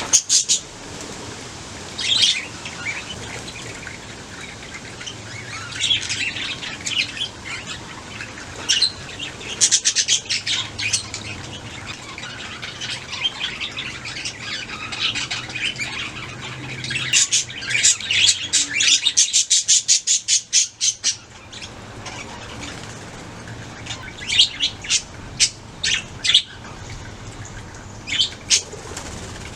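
Budgerigars chirping and chattering in short, sharp calls scattered throughout, with a fast run of rapid chirps for a few seconds past the middle.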